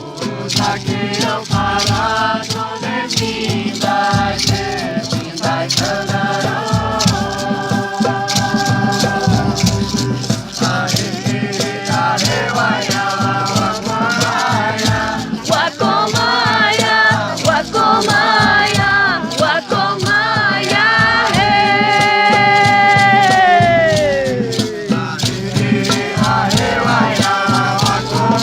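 Voices singing a chant over a steady, fast rhythm of shaker rattles. Late on, the voice holds one long note, then slides down in pitch.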